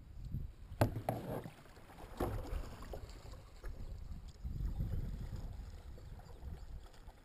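A kayak being paddled: double-bladed paddle strokes in the water, with two sharp knocks in the first couple of seconds, over a low rumble.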